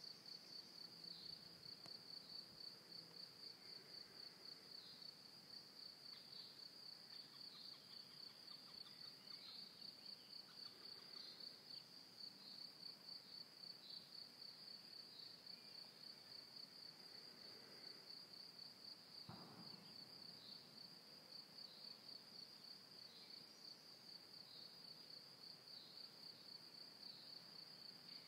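Faint chirring of crickets: a steady, high-pitched pulsing trill. A single faint soft knock comes about two-thirds of the way through.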